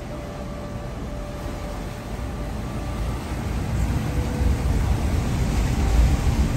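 Ferry Freshwater's propellers churning the water beside the wharf with a low, noisy rumble that grows louder over the second half.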